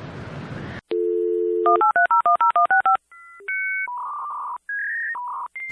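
Telephone dial tone for about a second, then a quick run of about ten touch-tone dialing beeps, then a series of single electronic phone tones at changing pitches.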